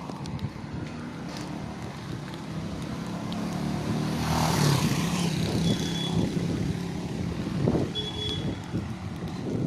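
Road traffic: a motor vehicle's engine running, passing close and loudest about four to five seconds in, with two short high-pitched beeps later on.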